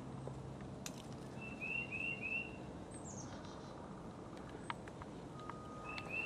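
Birds calling: a quick run of three short chirps, repeated near the end, and a thin high note sliding downward about three seconds in, over a faint steady hiss.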